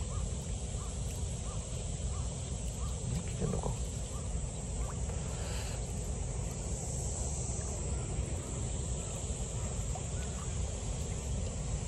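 Steady outdoor background noise, with a faint short chirp repeating about twice a second through the first half.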